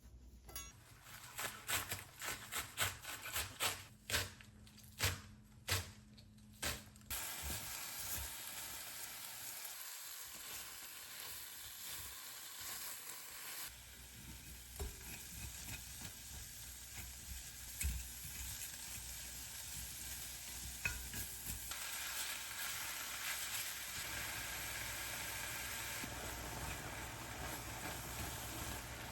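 A knife chopping on a cutting board in a run of separate strokes, then, about seven seconds in, food starts sizzling in a hot pan with a steady hiss that grows a little louder later on.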